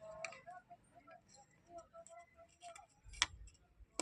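Faint small clicks and light taps from handling tools and parts on the opened speaker's circuit board, with a sharper click a little after three seconds and another near the end.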